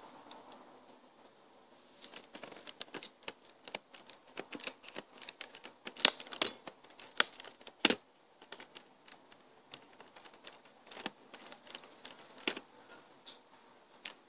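Irregular light clicks, taps and knocks of small objects and containers being handled, densest and loudest about six to eight seconds in, then sparser.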